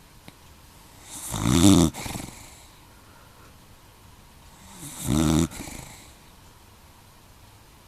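Cocker spaniel snoring: two loud snores about three and a half seconds apart, each with a softer tail.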